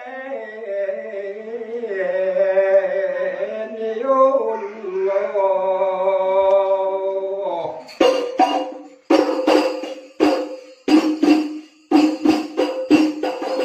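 Hadra music: a sung chant with long, wavering held notes, then from about eight seconds in, the voice stops and rebana frame drums are struck in a quick rhythm, about two to three beats a second.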